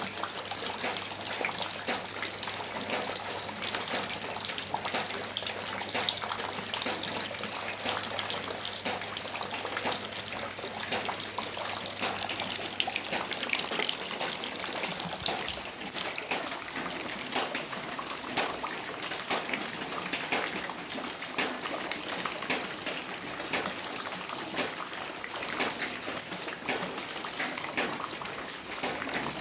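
Rain falling steadily, a dense hiss of many separate drops striking nearby surfaces. A faint low hum underneath stops about halfway through.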